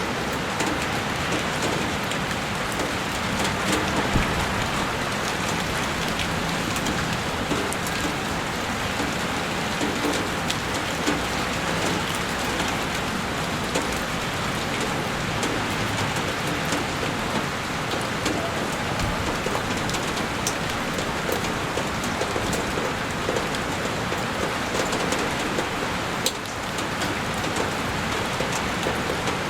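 Heavy rain falling on a window: a dense, steady hiss with many small, sharp drop ticks scattered through it.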